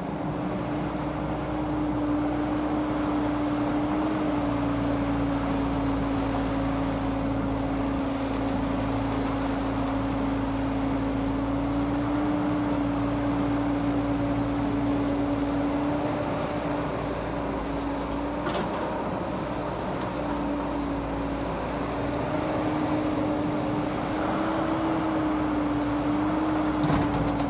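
Caterpillar hydraulic excavator's diesel engine running steadily under working load as it digs and swings, its hum shifting slightly in pitch a few times. One brief knock about two-thirds of the way through.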